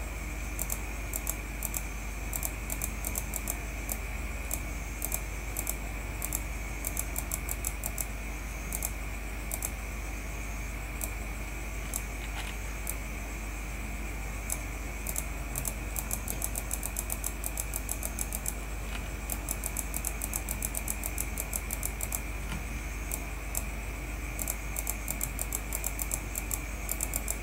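Computer mouse clicking in irregular runs of quick clicks, each click placing a point on an outline being traced in an image editor, over a steady electrical hum and a faint high whine.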